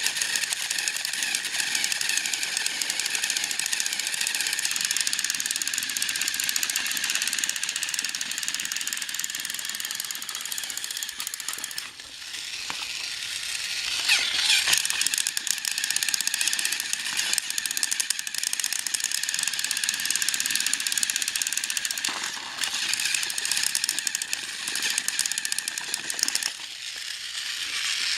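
Motors and plastic gearboxes of two battery-powered Trackmaster toy trains whirring and rattling steadily as they strain against each other in a tug of war. The sound dips about twelve seconds in, then comes back louder.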